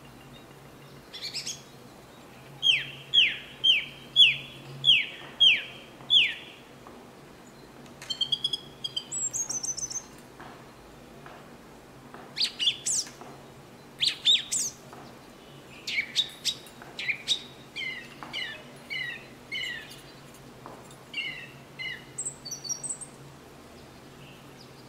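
Small birds chirping and calling. About two seconds in comes a run of about seven loud, sharply falling whistled notes. After that, assorted shorter chirps and quick trills of several kinds follow on and off.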